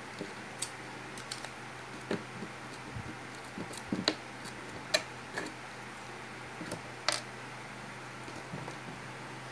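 Screwdriver prying a plastic spring-clip speaker terminal cup out of a speaker baffle board: scattered clicks, taps and scrapes, sharpest in the middle and again a couple of seconds later.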